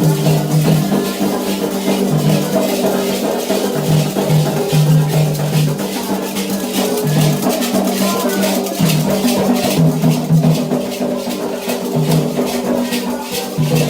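Candomblé ritual music for Xangô: hand drums and rattles beating a fast, steady rhythm under sung chanting.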